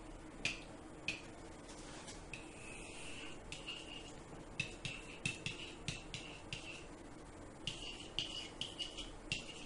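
A pen drawing and writing on an interactive whiteboard: a series of light taps and clicks as it touches the board, with several stretches of thin high squeaking as it is dragged across the surface.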